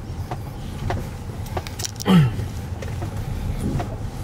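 Car engine idling with a steady low rumble, with scattered clicks and knocks of someone climbing out of the car. A short falling voice sound about two seconds in is the loudest moment.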